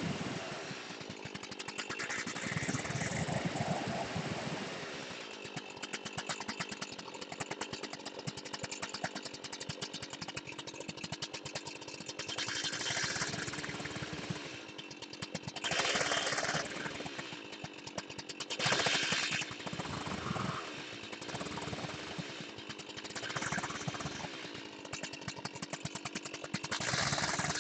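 Petrol chainsaw running throughout, revving up and dropping back in repeated surges as the bar tip cuts letters into a wooden slab. The loudest revs come a little past halfway.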